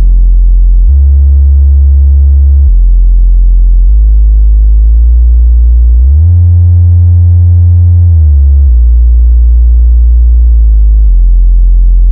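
Subwoofer test tone from a sound-check track, played loud: pure low bass tones that step between deep pitches. The tone glides up about four seconds in, holds higher, then slides back down in steps toward the end.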